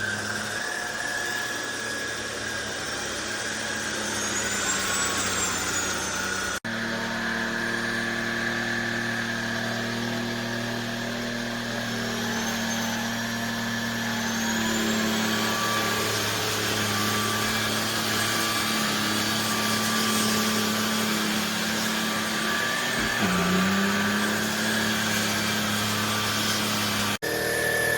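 Trucozie cordless stick vacuum running: a steady motor whine over a rush of air, its pitch drifting slightly, with two abrupt breaks, about six seconds in and near the end.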